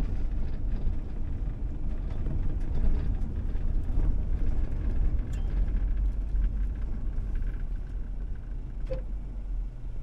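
Inside a car driving slowly along an unpaved dirt road: a steady low rumble of engine and tyres.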